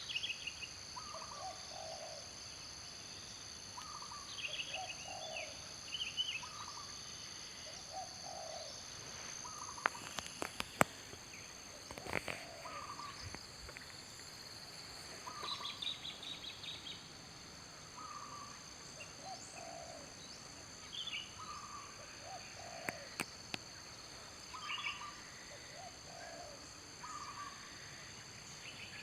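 A bird repeating a short falling two-note call about every two seconds, with brief higher chirps between, over a steady high insect drone. A few sharp clicks come around the middle.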